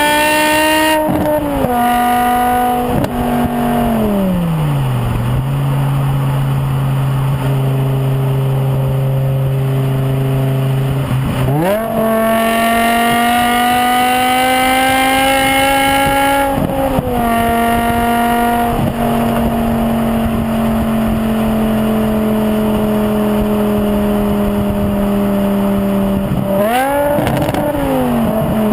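BMW E61 M5 Touring's V10 running through straight pipes with all four silencers removed. The revs climb and drop sharply in steps at gear changes, hold low and steady for several seconds, then surge up again. Later they fall slowly for several seconds, with a quick rev blip near the end.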